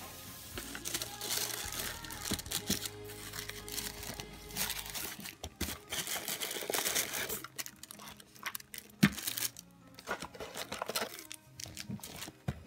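Tissue paper crinkling and rustling as it is handled and pulled out of a cardboard gift box, with one sharp knock past the middle. Quiet background music plays underneath.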